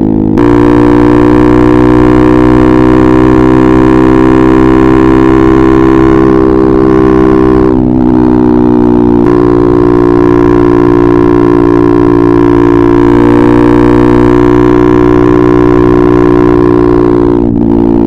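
KTM RC 390's single-cylinder engine running through an Akrapovič exhaust at a nearly steady engine speed. It dips briefly about eight seconds in and shifts pitch slightly again a few seconds later.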